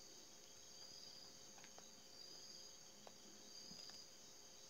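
Near silence: a faint steady high-pitched room or recording tone, with a few faint clicks about two and three seconds in.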